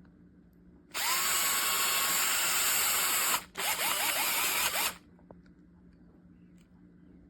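DEKOPRO 8V cordless drill running in two bursts: a run of about two and a half seconds that spins up at the start, a brief stop, then a shorter run of just over a second.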